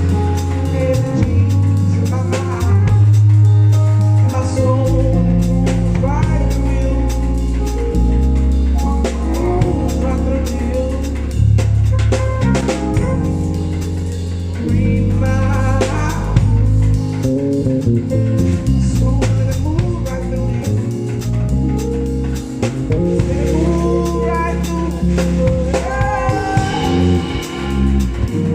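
Band playing at a sound check: drum kit, a steady bass line and guitar, with a melody over the top.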